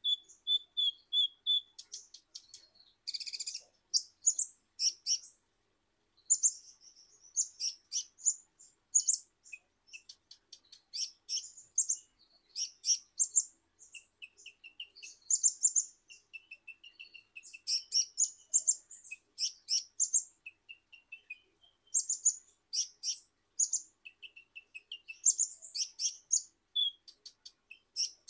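Male Van Hasselt's sunbird (kolibri ninja) singing: rapid runs of high-pitched chirps and twittering phrases, with a short pause about five seconds in.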